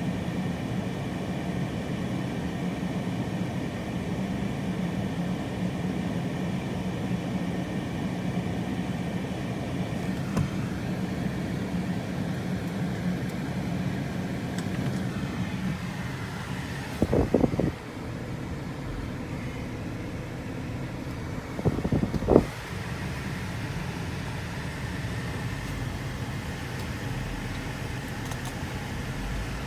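Strong wind blowing steadily over a low hum. Two gusts hit the microphone with loud, rumbling buffets, one a little past halfway through and another about five seconds later.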